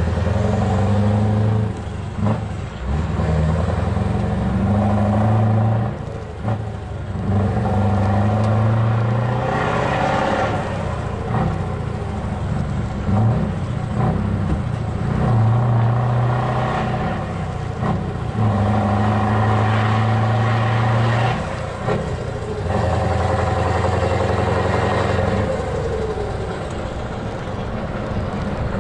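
Scania V8 truck engine heard from inside the cab, running under load with a deep steady note, dropping off briefly every few seconds before pulling again.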